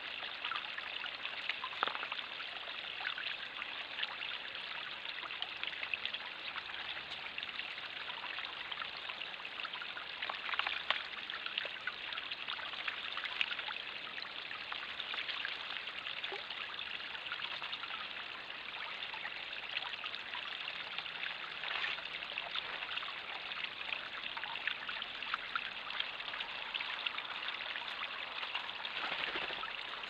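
Small backyard pond waterfall: water spilling steadily from a raised basin into the pond below, a constant trickling splash.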